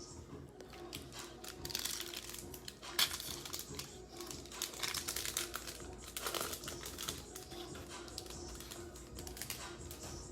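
Trading cards and their foil pack wrapper being handled at close range: irregular crinkling and rustling with small clicks as the cards are flicked through one by one.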